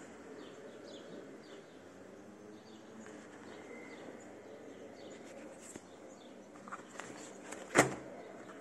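Faint outdoor background with light bird chirps, and one sharp knock near the end as the knee guard and its packaging are handled on a wooden table.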